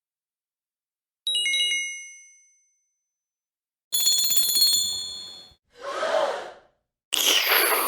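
Sound effects played back to back: a quick three-note chime that rings out, then a bell ringing with rapid repeated strikes for about a second and a half, then two short noisy bursts, the second the loudest near the end.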